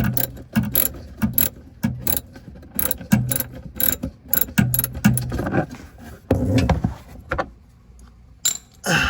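Hand ratchet tool clicking in repeated back-and-forth strokes, roughly one stroke every two-thirds of a second, as it loosens a fog light's mounting screws. The strokes get sparser and quieter near the end.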